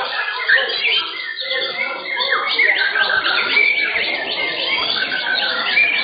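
Several caged white-rumped shamas singing at once in competition. Their fast, overlapping whistles, chirps and rattling phrases run together into a dense chorus.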